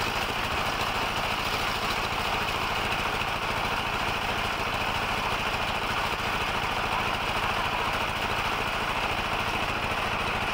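A small engine running steadily at a constant speed, with a fast, even beat underneath.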